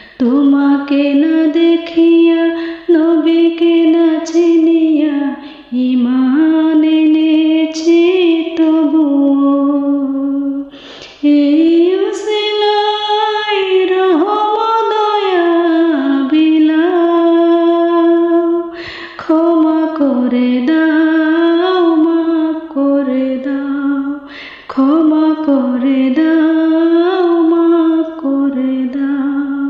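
A woman singing a Bengali nasheed (gojol), one voice carrying a slow melody in long held notes, phrase after phrase, with short breaks between them.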